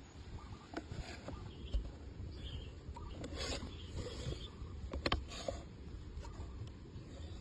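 Scraping and rubbing on wood while pieces are handled and marked, with a few light clicks and knocks, two close together about five seconds in.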